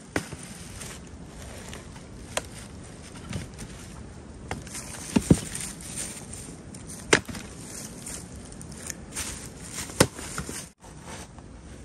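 Fiskars X27 splitting axe striking and splitting firewood rounds, several sharp cracks a couple of seconds apart, one of them a quick double hit.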